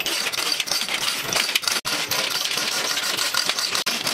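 Chain hoist clinking and rattling steadily as it hauls an engine up out of the engine bay: a dense stream of small metallic clicks, broken by two very short gaps, about two seconds in and near the end.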